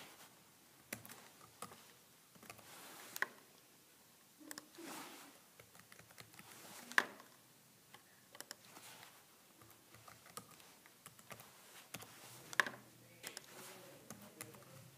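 Faint typing on a laptop keyboard: irregular key clicks with a few sharper, louder taps spread through.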